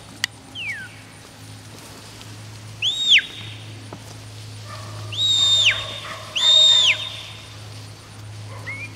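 Sheepdog handler's whistled commands to a working border collie: four high whistles. A short falling one comes near the start and a quick rise-and-fall one about three seconds in. Two longer, louder held whistles that drop away at the end follow at about five and six and a half seconds.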